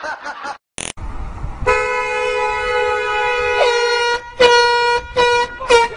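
Car horn held in one long steady blast of about two seconds, then three short honks.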